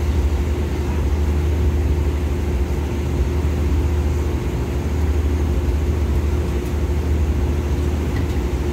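Diesel passenger train standing at the platform with its engine idling: a steady, even low hum.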